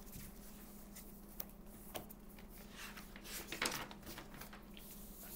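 Quiet handling of a spiral-bound sketchbook as a page is turned: a couple of light taps, then a short paper rustle about three and a half seconds in, over a faint steady hum.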